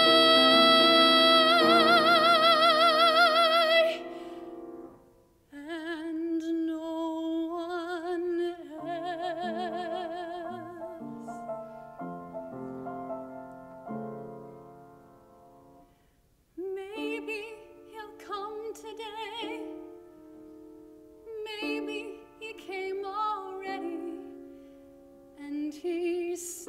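Soprano and grand piano performing an art song. A loud, high held note with wide vibrato ends about four seconds in. Softer piano accompaniment follows, with quieter sung phrases.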